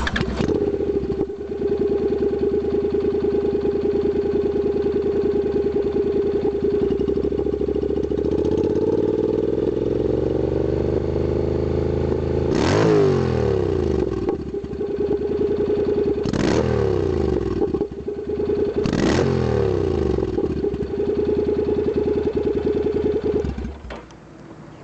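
Honda CTX700 parallel-twin motorcycle engine through a custom Sleek Exhaust 2.0: it starts, idles steadily, is revved up slowly and settles back, then gets three quick throttle blips before being switched off near the end.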